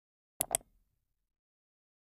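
Mouse-click sound effect: two sharp clicks in quick succession, a double click.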